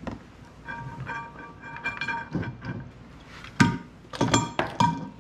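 Metal-on-metal clinks and taps of an Allen wrench and mounting hardware on a metal trolling-motor mount plate, each ringing briefly. A few sharper clicks come in the last two seconds.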